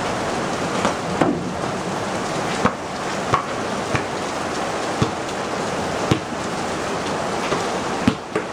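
Steady rain falling, with a basketball striking the wet court about nine times at uneven intervals as sharp thuds.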